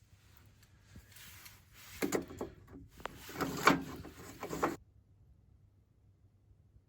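A run of knocks and scraping, as of gear being handled, from about two seconds in, loudest near the middle. It cuts off abruptly just under five seconds in.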